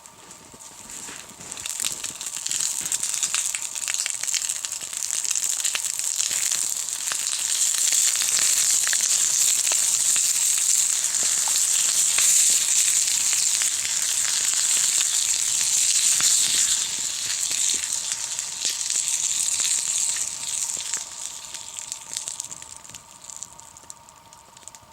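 Food frying in a pan over a campfire: a loud, steady sizzle with fine crackling that swells over the first few seconds and dies down near the end.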